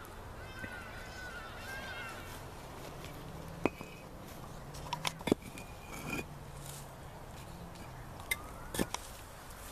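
Concrete blocks knocking and clinking against each other as they are lifted and set in place, a handful of sharp knocks spread a second or two apart. Animal calls sound faintly in the background during the first two seconds.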